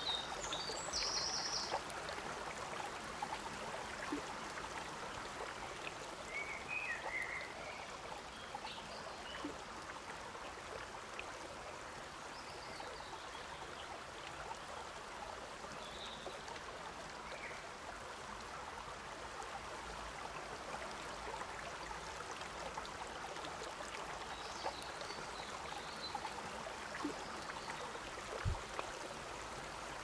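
Forest stream running and trickling over rocks in a steady wash, with a few short bird chirps scattered through it and a brief low thump near the end.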